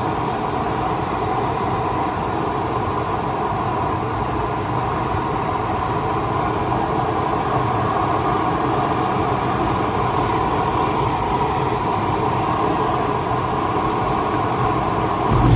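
Steady rush of air over the canopy in the cockpit of a Grob Viking two-seat glider in flight. Near the end a louder, deeper rumble sets in as the air brakes open.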